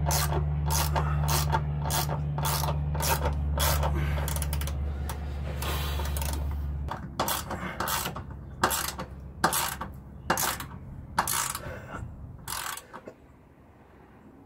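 Hand ratchet wrench driving a bolt up into a bus's steel floor rib, its pawl clicking about three times a second, then slower and irregular after about seven seconds, and stopping near the end. A low steady hum runs underneath and cuts off about halfway.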